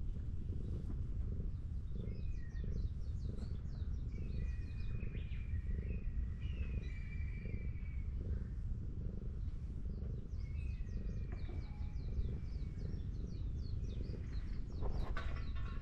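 Domestic cat purring close up while being stroked: a low, continuous rumble that pulses in a slow, even rhythm with its breathing. Birds chirp and whistle in the background, and a short rustling clatter comes near the end.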